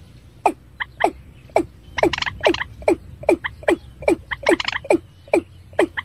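Watercock (ayam-ayaman) calling in a rapid series of short notes, about two to three a second, each falling steeply in pitch, over a low steady hum.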